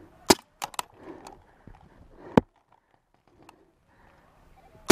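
Pump paintball markers firing: single sharp pops a couple of seconds apart, three loud ones, the first followed closely by two lighter clicks.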